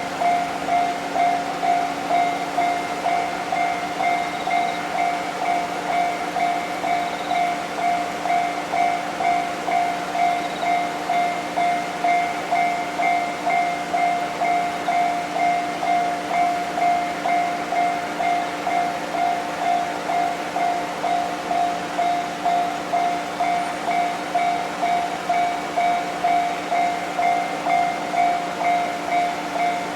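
Japanese railroad crossing's electronic warning bell ringing continuously in an even, rapid rhythm of about one and a half dings a second.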